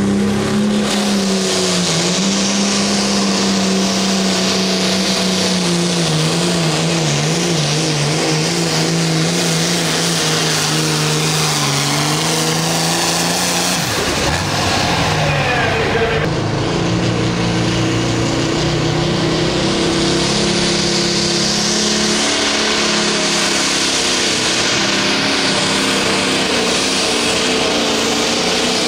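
Pulling tractors' diesel engines running flat out while dragging a weight-transfer sled: first a Case IH, then, after a break in the sound about halfway through, a John Deere. Each engine holds a steady, high note with small dips as the load comes on.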